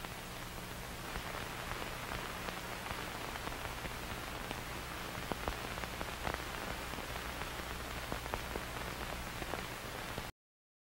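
Steady ambient hiss with many small scattered ticks and a low hum underneath, cutting off abruptly near the end.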